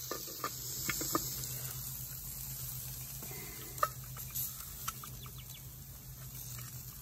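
Soft sizzling and crackling from the cast-iron skillet of cheesy potatoes and spinach over live charcoal, with a few light clicks and taps scattered through.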